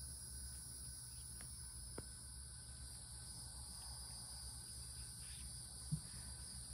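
Steady, high-pitched insect chorus droning over a low outdoor rumble. A light click comes about two seconds in, and a short low thump comes near the end.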